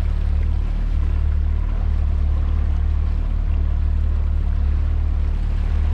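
A bass boat's outboard motor running steadily under way, with water and wind rushing past the hull.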